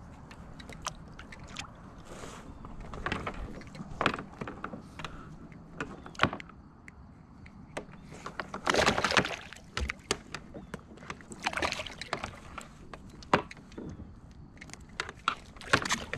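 Scattered clicks, taps and rustling from handling a crappie and fishing line aboard a plastic kayak, with a few louder scuffing bursts about nine, eleven and sixteen seconds in.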